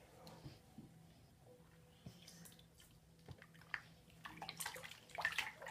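Faint water sounds of plastic toy ponies being washed by hand: small drips and splashes with light handling clicks, turning into a busier patch of splashing in the last second or so.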